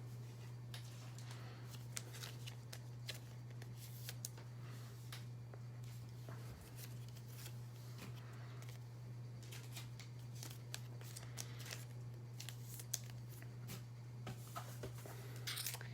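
Trading cards and their packaging being handled: scattered light rustles and small clicks, over a steady low hum.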